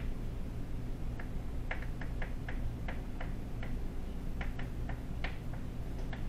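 A string of light, irregularly spaced clicks, about fifteen in six seconds, over a steady low hum.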